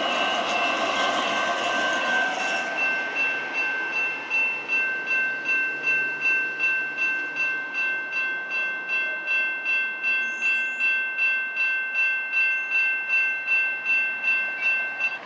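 Grade-crossing warning bell ringing in quick, even dings, about two to three a second. For the first couple of seconds a light rail train is also heard passing over the crossing. The bell cuts off suddenly at the end once the gates have risen.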